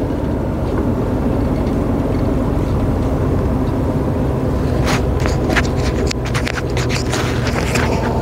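Steady engine and road drone inside a moving heavy truck's cab. From about five seconds in there is a run of irregular sharp clicks or rattles.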